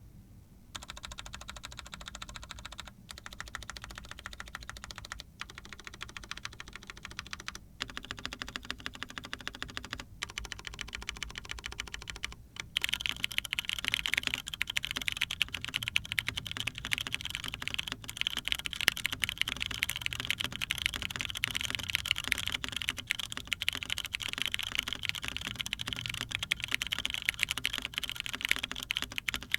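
Continuous fast typing on a Sana prototype TKL mechanical keyboard with a polycarbonate plate and diamond-polished, GHV4-lubed Cherry MX Brown tactile switches. The rapid keystroke clicks pause briefly a few times, then grow louder and brighter from about halfway through.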